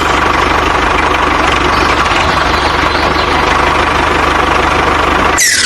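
DIY tractor's engine running steadily with a fast low pulse. Near the end the engine sound cuts off and a sharp whoosh falls quickly in pitch.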